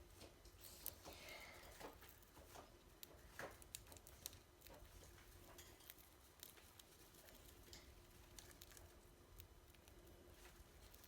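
Budgerigar pecking at and cracking seed from a hand: faint, irregular small clicks and taps, over a low steady hum.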